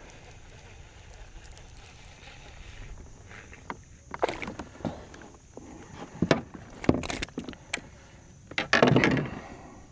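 Splashing and knocks against a kayak's plastic hull as a small largemouth bass is landed and handled, a few sharp loud bursts about four, six to seven and nine seconds in.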